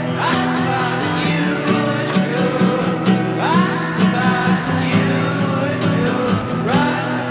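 A song playing: guitar and a singing voice with gliding pitches over a steady beat.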